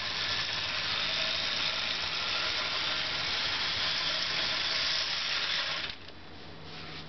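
Bachmann HO scale model train running on its track: a steady whirring rattle from the locomotive's small electric motor and the wheels on the rails. It cuts off suddenly about six seconds in as the train stops.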